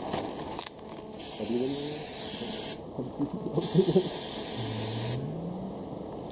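Aerosol can of wound-treatment spray hissing in two long bursts of about a second and a half each, with a couple of short squirts before them.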